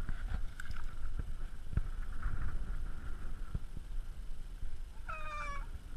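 A man's short, high-pitched yelp about five seconds in, the start of his cry as the pike he is releasing bites his hand. Under it, a low rumble and a few soft knocks from handling.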